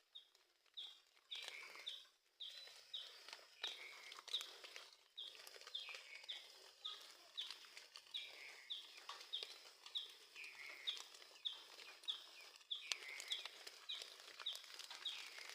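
A bird calling over and over, faint short chirps that slide down in pitch, about two a second.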